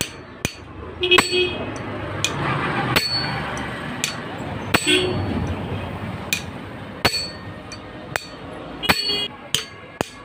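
Hammer blows on a steel tool held against a gear's retaining nut, as the nut is knocked loose or tight. About a dozen sharp metal-on-metal strikes at uneven intervals of roughly half a second to a second, some leaving a short high ring.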